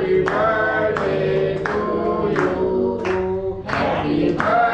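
Music with several voices singing sustained notes.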